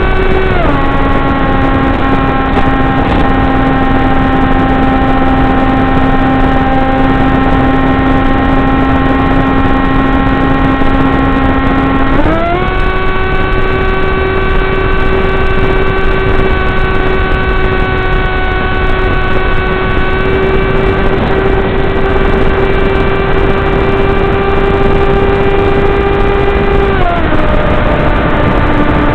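Model airplane's motor and propeller whining steadily over rushing wind, heard from on board; the pitch drops soon after the start, climbs again about halfway through and drops near the end as the throttle is eased, opened and eased again.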